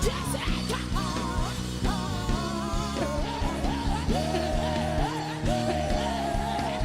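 Live gospel worship music from a band: a held, wavering melody line gliding between notes over a steady bass and drum groove.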